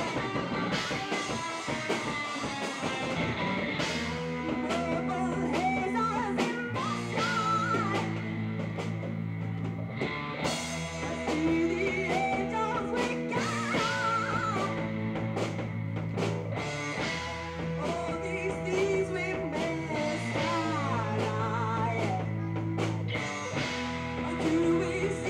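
Live rock band: a female singer over electric guitars, bass guitar and drum kit, the bass holding long low notes under the vocal line.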